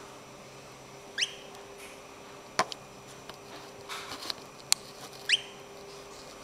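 European goldfinch giving two short, steeply rising call notes a few seconds apart. Between them come a few sharp taps and light scratches of the bird on the hard counter.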